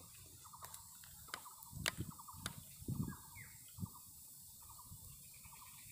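An unseen animal's short pulsed trills repeating at the same pitch in the background, with a few sharp clicks and soft rustling in the first half as grilled fish is torn apart by hand on a plastic tarp.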